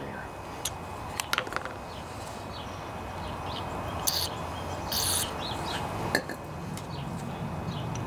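Two short hisses of an aerosol can of carburetor cleaner, sprayed through its straw into a carburetor to loosen a stuck jet. A few light metal tool clicks come before them, and a steady low hum runs underneath.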